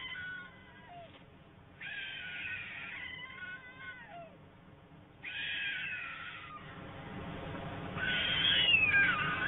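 Young white storks making their cat-like mewing begging calls: three bursts of high, wavering cries about a second or so each, with some notes falling away, the last burst louder with several voices overlapping.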